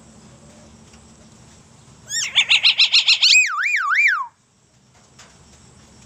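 Common hill myna calling: about two seconds in, a rapid run of about eight sharp, ringing notes, then two swooping whistles that rise and fall before stopping suddenly.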